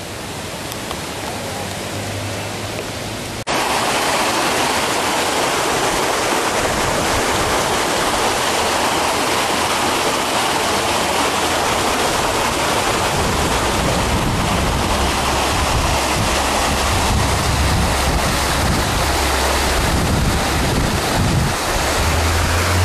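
Floodwater rushing steadily down a flooded street, a continuous even rush that jumps abruptly louder about three and a half seconds in.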